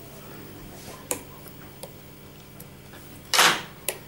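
Handling noises from fly-tying work: a few light clicks and one louder, short scraping rustle about three and a half seconds in, over a steady low hum.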